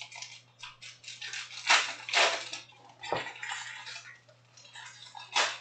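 Plastic shrink wrap on a sealed trading-card box crinkling and crackling in irregular bursts as it is handled and torn open, loudest about two seconds in.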